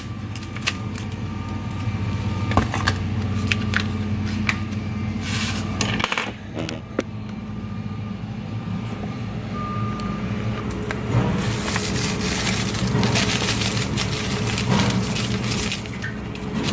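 Packets of enchilada sauce being opened and emptied into a slow cooker: rustling, scattered small clicks and clinks, with a longer stretch of rustling and pouring in the second half. A steady low hum runs underneath throughout.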